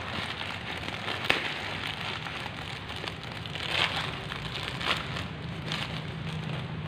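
Plastic bag packaging crinkling and rustling as hands work it off a tent's stuff sack, with a few sharper crackles, the loudest about a second in.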